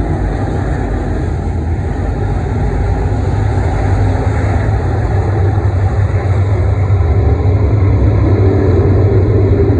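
A pack of IMCA Modified dirt-track race cars running their V8 engines at race speed, a loud steady drone heard from the grandstand. A higher engine note joins about eight seconds in as cars come nearer.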